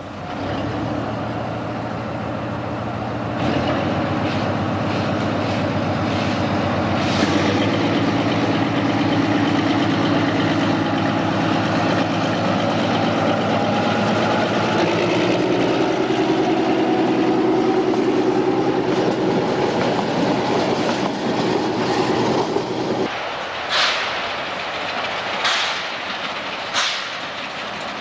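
TU47 narrow-gauge diesel locomotive's engine working hard as it pulls away and passes with its coaches, its note stepping up a few times, with wheels clacking on the rail joints. About 23 s in it cuts abruptly to a steam locomotive's slow exhaust beats, four chuffs about a second and a half apart.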